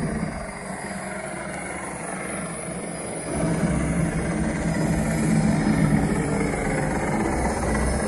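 Film soundtrack reproduced through a Harman Kardon AVR 145 home-theater receiver and its speakers in Neo:6 three-channel cinema mode: a steady engine rumble with no dialogue, growing louder about three seconds in.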